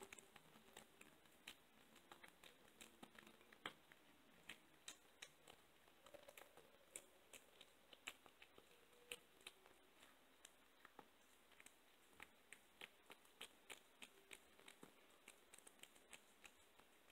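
Kitten eating raw meat, faint wet chewing clicks at an irregular pace of about two or three a second.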